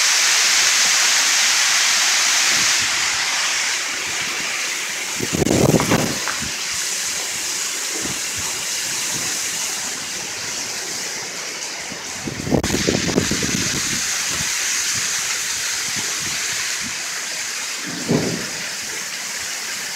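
Hail falling hard on pavement in a dense, steady hiss that eases a little after a few seconds. Three short, louder, lower swells come through, at about six, thirteen and eighteen seconds in.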